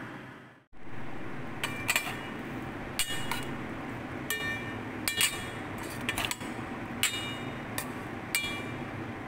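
Metal spatula striking and scraping a steel pan while long beans are stir-fried, over a steady sizzling hiss. The clinks ring briefly and come irregularly, often in quick pairs, about once a second.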